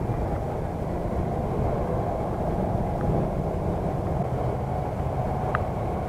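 Dull, muffled steady rumble of wind and road noise from riding a bicycle through city traffic, with a couple of faint clicks midway and near the end.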